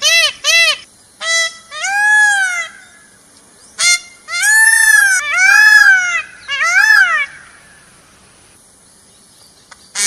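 Male Indian peafowl (peacock) calling loudly: two quick short calls, then a string of longer calls that rise and fall in pitch. The calls stop about seven seconds in.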